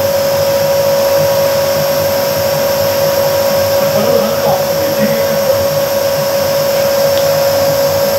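Fujifilm page-developing machine running through a job: a steady whir with a constant hum tone over it.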